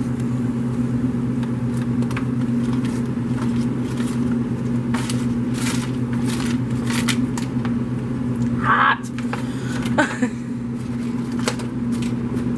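A steady machine hum from kitchen equipment, under repeated crinkling and scraping of a thin aluminium foil pan as cooked bacon pieces are tipped and scraped out of it.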